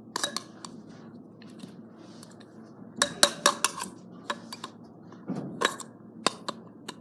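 Metal scissors clicking and scraping against the hard plastic casing of a small toy hairdryer as it is pried open, in irregular sharp clicks with a dense run of them about three seconds in.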